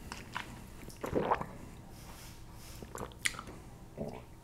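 A person sipping from a small glass and swallowing, with a few short, quiet wet mouth sounds.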